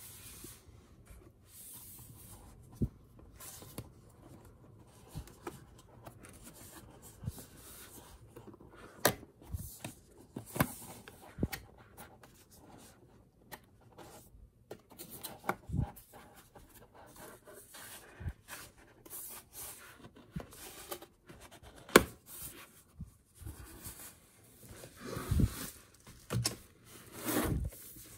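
Cardboard packaging being handled: fingers rubbing and scraping on the cardboard box, with scattered sharp clicks and knocks. Near the end come longer, louder sliding scrapes as the plastic-wrapped inner case is pulled out of the cardboard sleeve.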